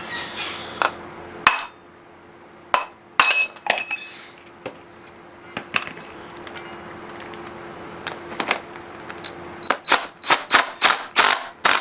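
Hammer blows on a steel socket extension set against the crankcase-support bolts of a Vittorazi Moster 185 paramotor engine, driving the bolts out. Scattered sharp metallic strikes, some with a brief ring, then a quick run of about eight blows near the end.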